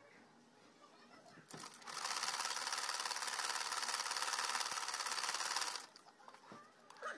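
Sewing machine running steadily for about four seconds in the middle, stitching a seam through quilt-cover cloth. A click comes before it starts, and small clicks of handling follow after it stops.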